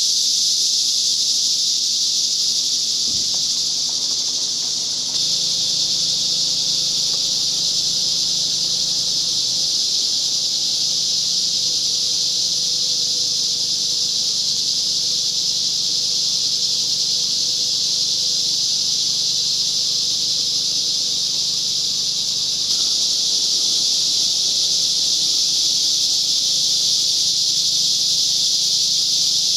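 Chorus of large cicadas buzzing very loudly in one continuous high, even drone. It sags a little about four seconds in, picks back up at five, and grows slightly louder again after about twenty-two seconds.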